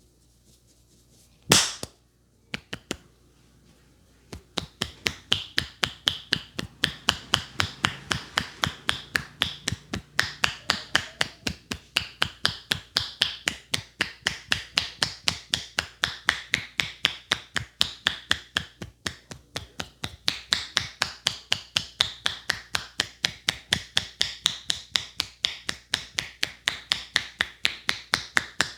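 Fast, even hand strikes of a percussive head massage, about five slaps a second, starting about four seconds in. Before them come one sharp, loud crack and two smaller clicks.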